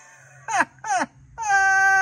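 A high-pitched wailing voice: two short cries, then a long held wail that drops in pitch at its end.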